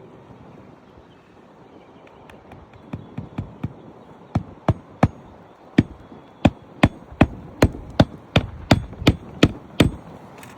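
Hammer driving roofing nails by hand into a shingle: a few light setting taps, then a run of about fourteen sharp strikes at roughly three a second that stops shortly before the end.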